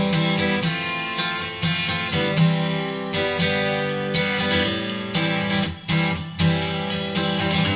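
Background music with strummed acoustic guitar chords.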